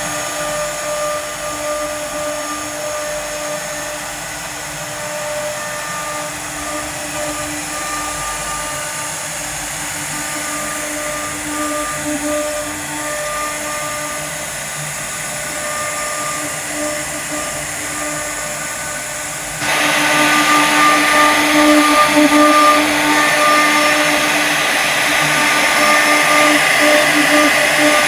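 The spindle motors of a Woodstar 1325 CNC router run with a steady whine while their router bits carve relief patterns into wood panels, with a rasping cutting noise underneath. About two-thirds of the way through, the sound suddenly gets louder and brighter.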